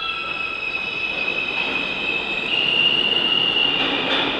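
R160 subway train pulling out of the station and picking up speed: a high whine that steps up in pitch about halfway through, over a growing rumble of wheels on rail.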